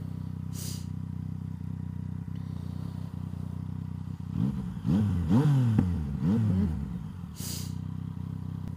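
Motorcycle engine idling at a standstill, with three quick throttle blips near the middle that rise and fall in pitch.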